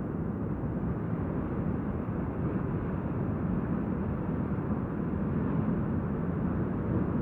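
Steady low rumble with hiss from running machinery, even throughout with no breaks or distinct events.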